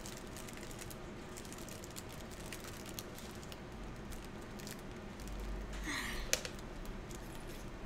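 Faint, scattered small clicks and crinkles with a brief louder rustle about six seconds in, the sounds of handling and eating a packaged snack.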